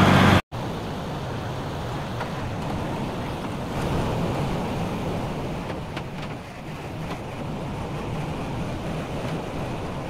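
Tractor engine running steadily at idle, heard as a low, even rumble with a rushing noise over it.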